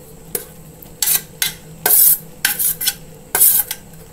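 A spoon scraping granulated sugar off a steel plate into a pot of cooked mung beans, in about six short scraping strokes as the sugar slides in.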